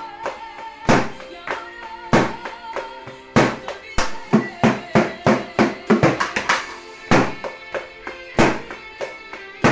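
Homemade drum kit of paint buckets and disc-shaped pads struck with sticks along with a recorded song: single sharp hits about once a second, with a quick fill of rapid strikes in the middle.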